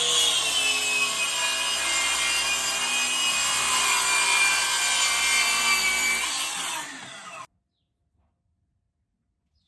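Circular saw cutting through the edge of a wooden door panel, trimming off a very thin strip. The motor's whine sags a little in pitch under load, then winds down about six and a half seconds in and stops abruptly a second later.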